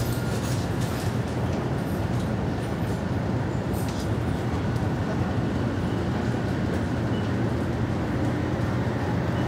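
Steady low rumble of a 500 series Shinkansen in motion, heard from inside the passenger car.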